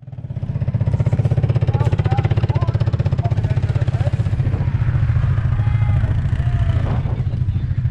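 ATV engine running steadily with a fast, low throb and no revving.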